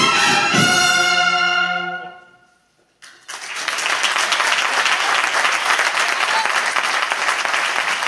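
A cornet-and-drum band (cornetas y tambores) ends a processional march on a held brass chord with two low drum strokes at the start, and the chord dies away about two and a half seconds in. After a moment of silence the audience breaks into steady applause.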